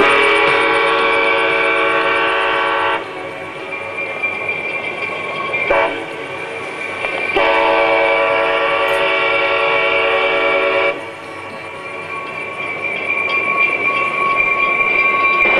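Diesel locomotive horn sounding two long blasts of about three seconds each, with a short toot between them, over the steady rumble of a running train.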